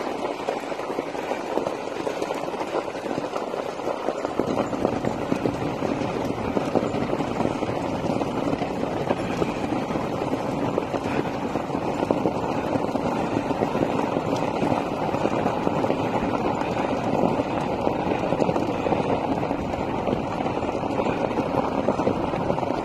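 Dog-drawn kart rolling along a gravel road: steady, unbroken noise of the wheels running over gravel, with no pauses.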